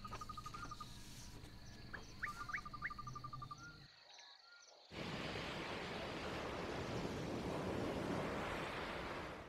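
Nature sound-effect ambience of an insect trilling in short, evenly spaced runs, with a few quick rising chirps about two seconds in. After a second of near silence about four seconds in, a steady rushing sea ambience takes over.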